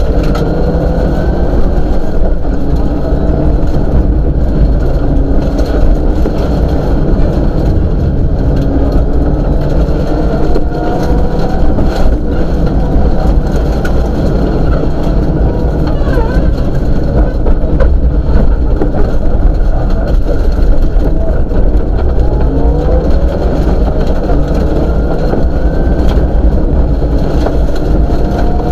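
Rally car engine heard from inside the cabin at speed on a dirt stage, its pitch climbing again and again as it revs through the gears, over loud steady road and gravel noise.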